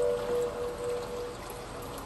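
A Native American-style flute's held note fading out about a second and a half in, leaving the steady hiss of rain.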